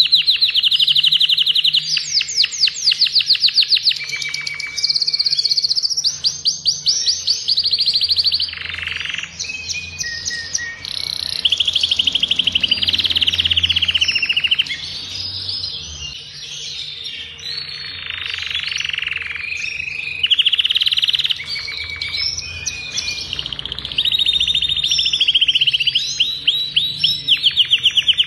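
Adult male Agata canary singing a long, nearly unbroken song of fast trills and rapidly repeated notes, moving from one phrase to the next, with a softer stretch around the middle.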